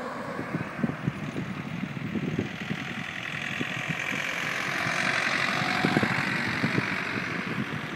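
Strong wind gusts buffeting the phone's microphone in irregular low rumbles, with a broad rushing that swells toward the middle and then eases.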